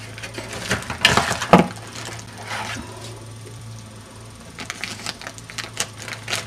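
Plastic packaging crinkling and clicking as bagged cables are handled in a cardboard box. The loudest burst comes about a second in, with sparser clicks near the end, over a steady low hum.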